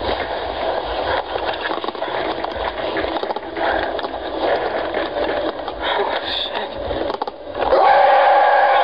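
Rough, noisy rustling and scraping with crackles, the sound of a handheld camera's own microphone as it is moved about. About three quarters of the way in this cuts out, and a tone glides up into a steady held droning tone of background music.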